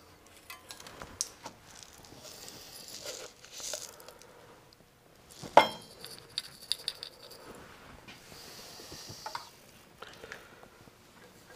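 Light clicks and short rustles of hands working an Emco benchtop plastic injection molder, with one sharp knock about five and a half seconds in.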